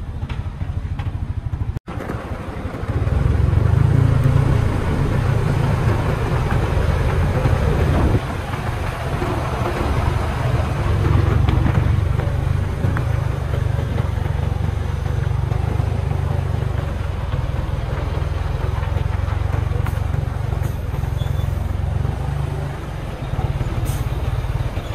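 Concrete mixer truck's diesel engine running close by: a steady, loud low rumble that gets much louder about three seconds in.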